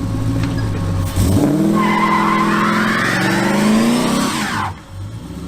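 Car engine idling, then revved hard about a second in with its pitch climbing steadily while the drive tires spin and squeal in a burnout. Both tires are spinning. The revs drop off suddenly near the end.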